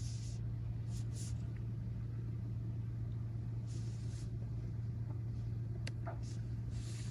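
Steady low hum, with a few faint soft rustles and a couple of light clicks near the end.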